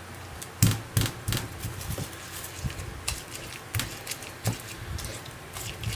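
Stone pestle grinding and pounding chilli and tomato sambal in a stone mortar (cobek and ulekan): irregular dull knocks and scrapes, starting about half a second in.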